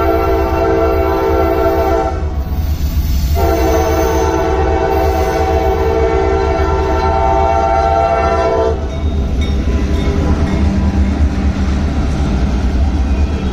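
CSX freight locomotive horn blowing two long blasts of a multi-note chord, the first ending about two seconds in, the second stopping about nine seconds in, over a steady low rumble of the passing train.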